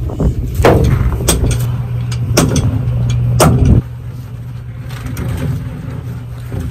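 A ship's engine drones steadily under several sharp knocks and thuds as a thick braided rope is hauled and dropped on the steel deck. A little under four seconds in it gets suddenly quieter, leaving the low drone with only faint knocks.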